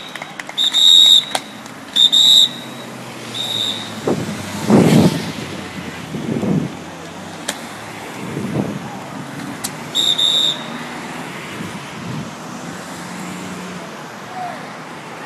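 Cars driving past one after another, each engine swelling and fading as it goes by. Several short, shrill toots sound in the first few seconds and once more about ten seconds in.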